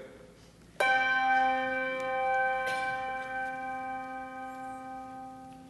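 A bell struck once, ringing on and slowly dying away, rung in remembrance of a deceased church member whose name has just been read.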